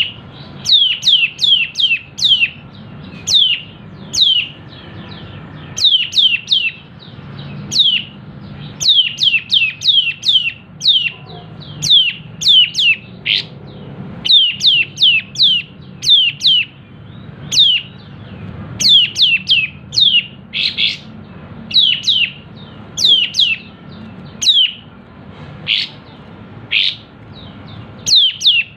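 Kapas tembak, a bulbul kept as a songbird, calling in quick runs of sharp notes that each drop steeply in pitch, three to six notes to a run with short pauses between runs. A faint low hum runs underneath.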